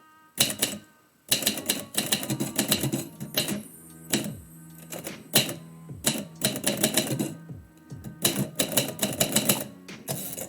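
Typewriter keys striking in quick runs of clacks, broken by short pauses, as a poem is typed.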